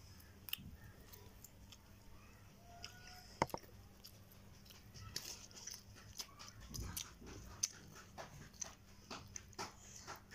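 Quiet sounds of people eating by hand from plates: scattered small clicks and taps as food is torn and handled, over a low steady room hum.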